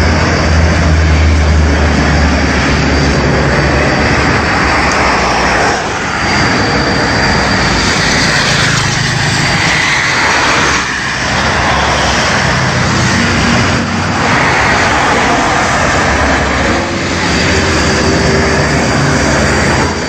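Steady motor-vehicle noise: an engine running with road traffic sound, loud and continuous.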